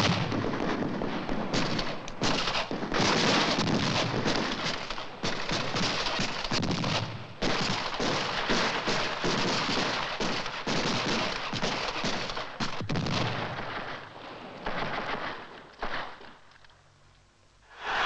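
Dense, irregular volleys of gunfire-like bangs and crackles, the sound of a battle, dying away near the end.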